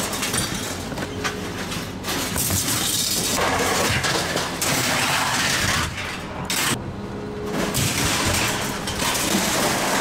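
Scrap metal and junk being thrown by hand off a pickup truck bed onto a scrap pile: loud, continuous clattering and crashing of metal, with a brief lull about seven seconds in.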